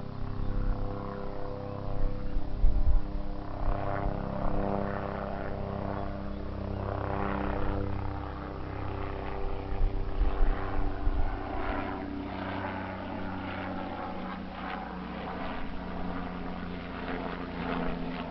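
Bell 407 helicopter running, with its single turboshaft engine and rotor giving a steady set of tones that sink slightly in pitch about two-thirds of the way through.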